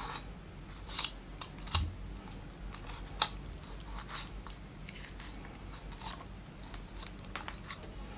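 Knife slicing raw chicken meat away from the rib cage during deboning: faint, scattered small crackles and clicks as the blade scrapes bone and cartilage.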